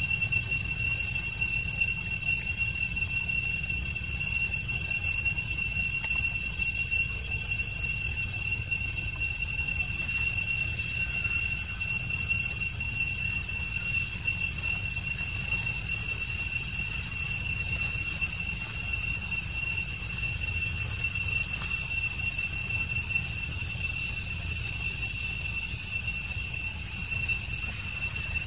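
Forest insects, likely cicadas, holding one unbroken high-pitched whine without pulsing, over a steady low rumble.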